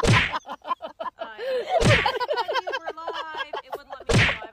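A dog's paw banging against a wire crate door: three loud knocks about two seconds apart, with rapid high-pitched vocal sounds between them.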